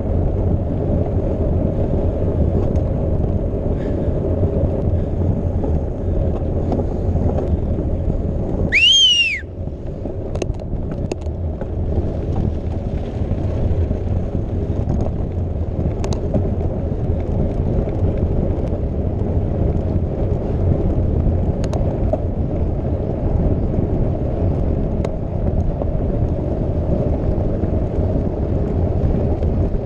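Steady rumble and wind noise on the microphone of a camera riding along on a mountain bike over stone paving, with a few sharp clicks and rattles. About nine seconds in, a short whistle-like tone rises and falls.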